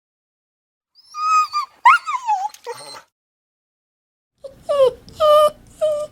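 Dog whimpering and yelping: a high whine about a second in, then a yelp that rises and falls in pitch. After a pause comes a run of about four short whimpers, each falling in pitch, near the end.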